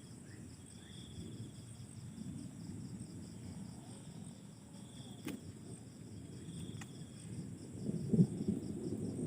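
Crickets chirping steadily in a fast, even trill, with a few sharp clicks and low rumbling bumps that grow louder near the end.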